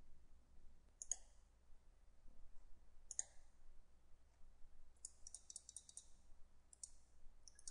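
Faint computer mouse clicks: single clicks about one and three seconds in, a quick run of clicks a little past the middle, and two more near the end.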